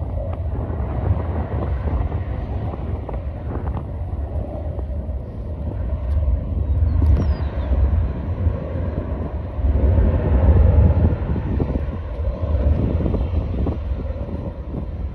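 Wind buffeting the phone's microphone in gusts, a heavy low rumble that swells about seven and ten seconds in.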